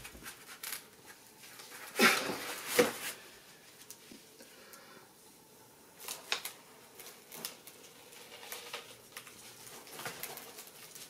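Heavy cardboard boxes of glazed porcelain tile being set down and stacked on a plywood sheet: cardboard rustling and scraping, with two loud knocks a little under a second apart about two seconds in, and further knocks as more boxes are placed later.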